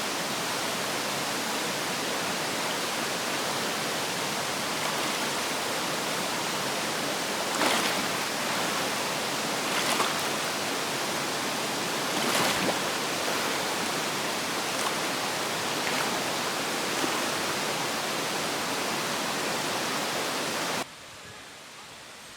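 Mountain stream rushing steadily over rocks, with three short louder surges about two seconds apart in the middle. The water sound stops abruptly near the end.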